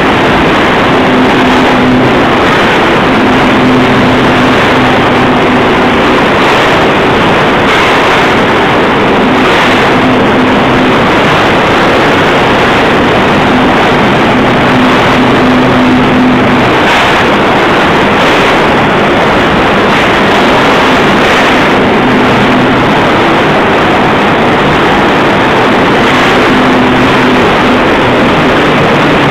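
Steel section rolling mill running while a red-hot bar is rolled through the stands: a loud, dense mechanical din. A low hum rises out of it and drops away again every few seconds.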